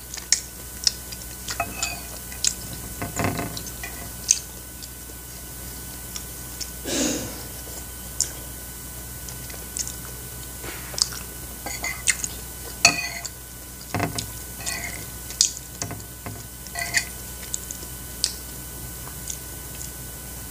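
Close-up eating sounds of chewy tteokbokki rice cakes in sauce being chewed: irregular wet smacks and mouth clicks, with a spoon now and then clinking against a ceramic plate.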